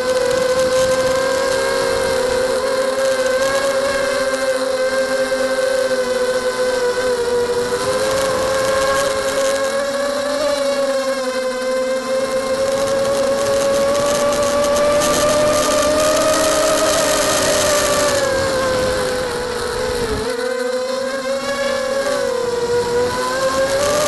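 FPV quadcopter's brushless motors and propellers whining steadily, the pitch rising and falling as the throttle changes, with a dip about three-quarters of the way through. Rushing air on the onboard microphone runs underneath.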